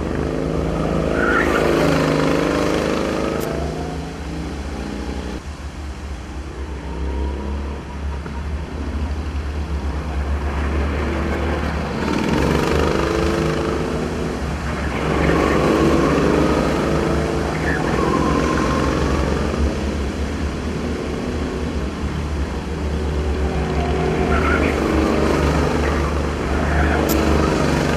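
Go-kart engines passing in repeated waves a few seconds apart, each swelling and fading with its pitch rising and falling. A steady low hum runs underneath.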